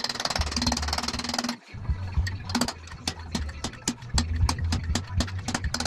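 A power ratchet runs with a fast, even rattle on the crankshaft snout while a timing gear goes on, then cuts off suddenly about a second and a half in. After that come a string of irregular metallic clicks and clinks from the tool and parts.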